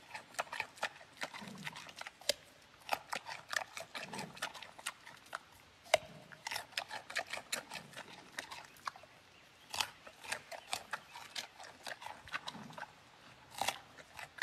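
Giant panda crunching on raw carrot, a run of crisp, irregular crunches as it bites and chews.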